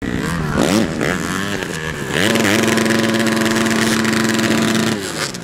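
Dirt bike engines revving hard in deep mud. About two seconds in, one engine is held at a steady high pitch for about three seconds before dropping off.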